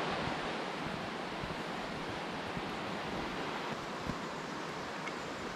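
Steady rushing of water from a waterfall or fast stream, a constant even roar with no let-up.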